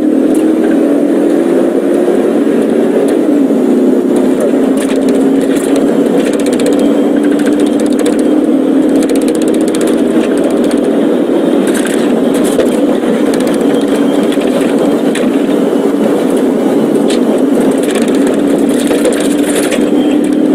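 A car's engine and tyre noise at sustained speed, the engine note steady and slowly rising, with scattered light clicks and rattles.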